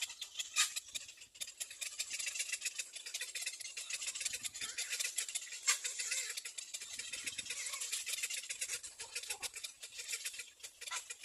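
Little black cormorant nest sounds: a dense, high, scratchy chatter that runs on without pause.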